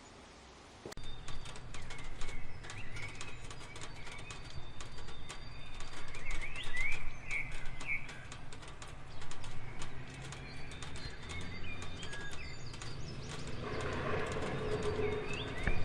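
Rain falling, a dense patter of drops and drips, with birds chirping now and then over it. It comes in suddenly about a second in, after a faint hiss.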